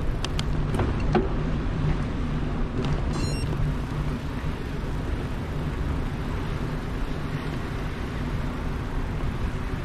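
Steady low rumble of wind buffeting the microphone and tyres rolling while riding a bicycle, with a few sharp clicks in the first second and a brief rapid rattle about three seconds in.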